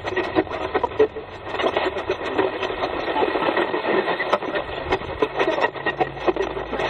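Steady, dense crackling static full of small clicks, like radio static.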